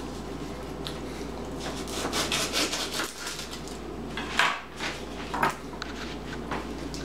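Kitchen knife cutting an onion on a plastic cutting board: a quick run of short cutting strokes about two seconds in, then two louder knocks and scrapes of the knife against the board, and a few light clicks.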